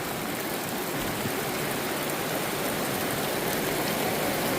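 Steady rushing of fast-flowing water from a swollen river, an even noise across all pitches that swells slightly toward the end.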